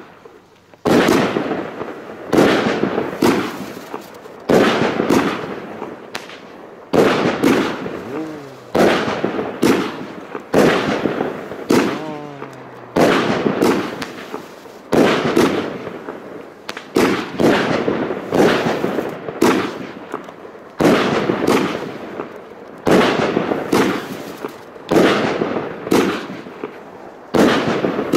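Argento Blütenstaub consumer fireworks battery firing shot after shot, about one a second. Each shot is a sharp bang followed by a fading crackle as the burst of stars spreads.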